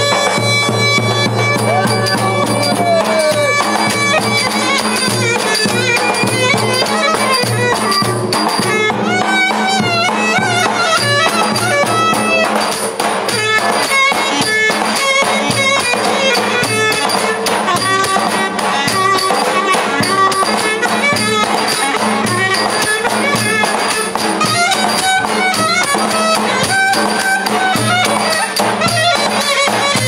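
Live Turkish folk dance music: a shrill reed wind instrument plays a fast, ornamented melody over the steady strokes of a davul bass drum.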